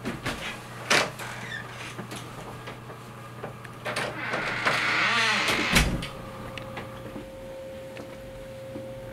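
Handling and door noises: a few clicks and a sharp knock, then a swishing rush that ends in a heavy thump, like a wooden door being swung shut, about six seconds in. A low hum runs underneath, and a steady tone starts after the thump.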